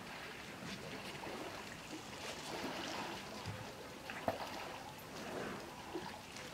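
Elephants drinking: water splashing and trickling in irregular small bursts, with one sharp knock about four seconds in.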